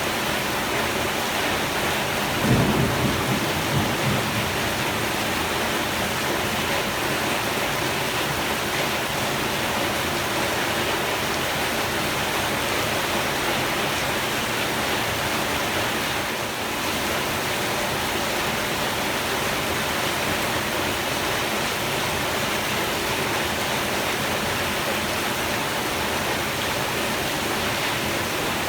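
Heavy rain falling in a steady downpour. A brief low rumble stands out about two and a half seconds in.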